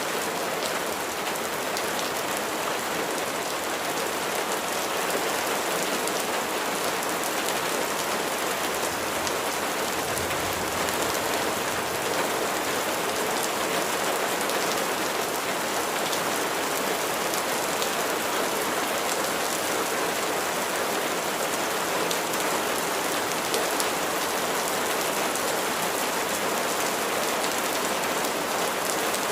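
Steady rain falling, a dense patter of many individual drops over an even hiss.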